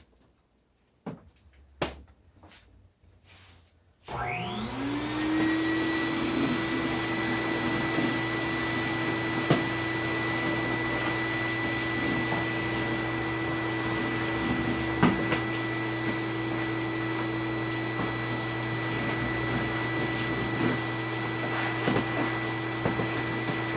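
A few faint knocks, then a vacuum cleaner is switched on about four seconds in. Its motor spins up quickly to a steady whine and keeps running while it sucks up workshop mess, with occasional sharp clicks of debris going up the hose.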